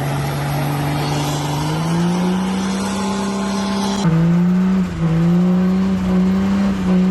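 Car engine held at high revs during a tyre burnout. Its note steps up in pitch about two seconds in and sags briefly twice near the middle.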